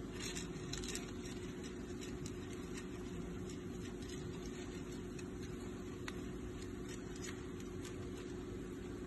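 A steady low hum with faint, scattered scratches and clicks: a hamster shifting and grooming in a small cup on pellet litter, with a small cluster of clicks right at the start.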